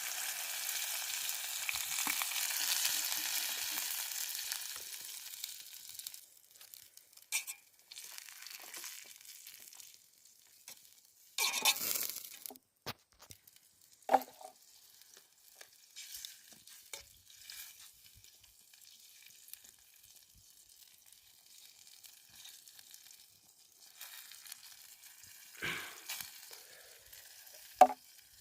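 Water hitting a hot pan of frying onion, tomato and masala and sizzling loudly, dying away over about six seconds. A few brief clatters follow, the largest about twelve seconds in.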